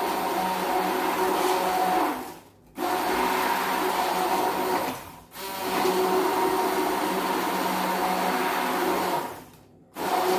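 Electric blender running on a mix of orange drink powder, sugar and water to dissolve the sugar. It runs in spurts: the motor winds down three times, about 2 s, 5 s and 9 s in, then starts again abruptly each time.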